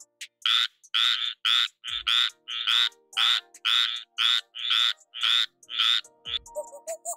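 A frog croaking over and over, short rasping croaks about two a second, stopping shortly before the end.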